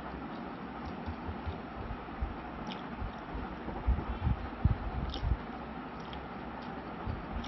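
A person eating rice and chicken curry by hand, with chewing and mouth sounds over a steady background hiss. A cluster of low thuds comes about four to five seconds in, the loudest part.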